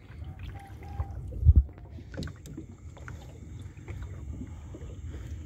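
Small boat out on the water: a low steady rumble with scattered light knocks and clicks, and one loud low thump about a second and a half in.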